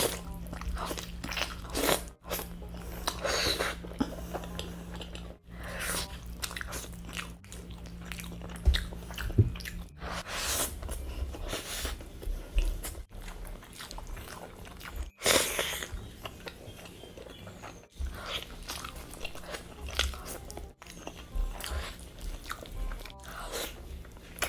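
Close-miked eating: repeated crunchy bites and chewing of food, one crunch every second or two.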